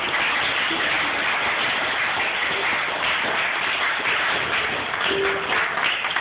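Live bluegrass band playing fiddle, mandolin and upright bass, heard through a phone's microphone.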